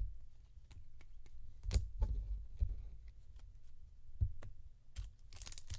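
Trading cards and packaging being handled on a table: scattered light clicks and a few soft thumps. Near the end a foil card-pack wrapper starts crinkling as it is torn open.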